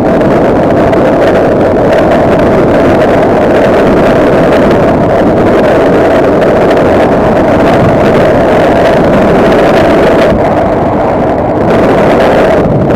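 Vehicle engine running steadily under way, with a steady whine held throughout, mixed with heavy wind noise on the microphone.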